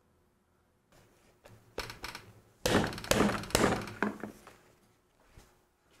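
Raw bone-in turkey breast being handled and turned over on a paper plate: a cluster of thumps and scuffs starting about a second in, loudest in the middle, then dying away.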